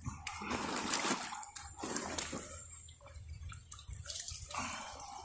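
Water splashing and sloshing in irregular bursts as a carp is handled in the shallow margin of a lake.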